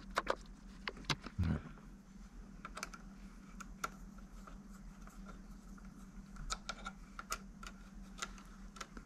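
Scattered light clicks and taps of hands handling and prying at the plastic case of a RadioMaster TX16S transmitter during disassembly, with a soft thump about a second and a half in. A faint steady hum runs underneath.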